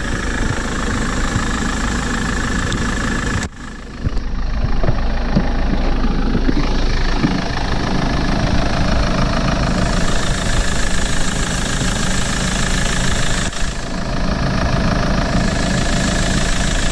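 2012 Ford Transit's diesel engine idling steadily with the bonnet open, with a brief drop in level about three and a half seconds in.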